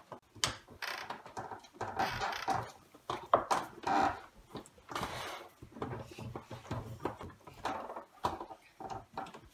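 Scattered knocks and taps of plastic biscuit cutters and a wooden rolling pin against a wooden table as soft dough is cut into letters and rolled out.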